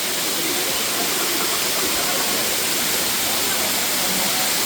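Kanto Lampo waterfall: a steady, loud rush of falling water, even and unbroken.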